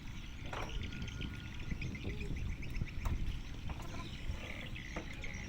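Outdoor ambience: birds chirping over a steady low rumble of wind on the microphone.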